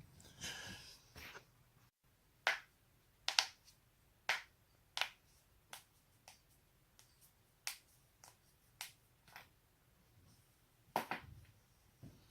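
Neck joints cracking: about fifteen sharp pops at irregular intervals, some in quick pairs, after a short rustle at the start.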